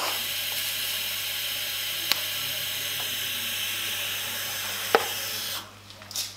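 TIG welding arc tacking a stainless steel pipe joint: a steady, even sizzling hiss of the arc and shielding gas, with a few sharp clicks, cutting off abruptly about five and a half seconds in.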